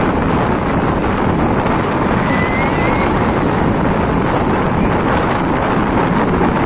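Ocean surf breaking and washing up a sandy beach, mixed with wind buffeting the microphone: a steady, loud rush.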